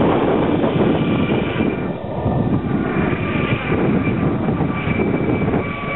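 Helicopter climbing away overhead after lifting off: steady, fast rotor chop with a thin high turbine whine on top.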